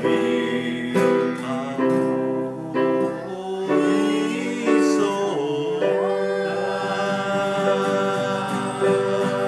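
Several voices, men and women, singing a Japanese song together to electric keyboard and acoustic guitar. From about six seconds in they hold one long note that slowly fades.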